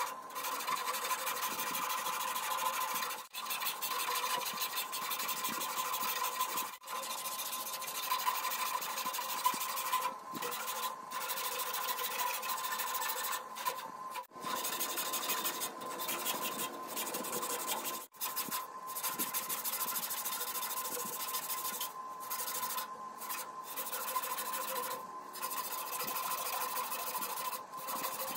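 A strip of sandpaper pulled back and forth, shoe-shine style, through the grooves of a carved mahogany barley twist. It makes a continuous rubbing rasp, broken by a few brief pauses.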